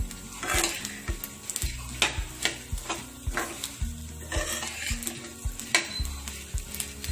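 Metal spatula stirring and scraping puffed rice with egg and vegetables around a kadhai (Indian wok) over the heat, with sizzling. The spatula's scrapes and knocks come about twice a second.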